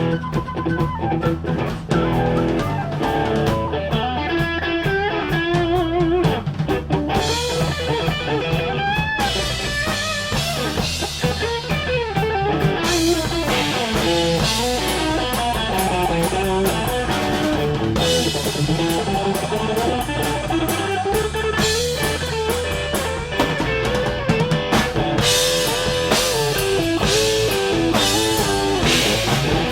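Rock band playing an instrumental break: a guitar lead line over drum kit and bass, with no vocals.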